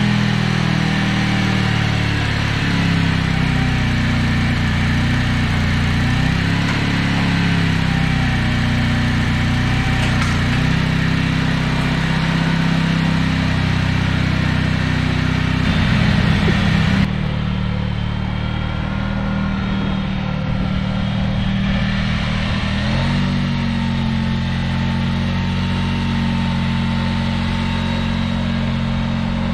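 Honda 3813 riding lawn mower's engine running steadily, its pitch rising and falling a little as the mower is driven, the machine running again after repairs on a mower bought not running.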